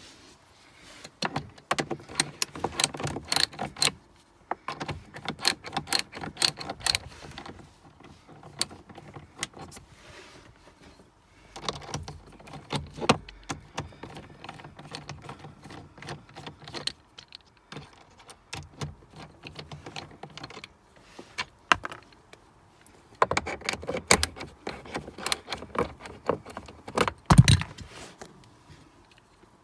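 Socket ratchet clicking rapidly in several bursts as the glovebox mounting screws are turned, with a heavier knock near the end.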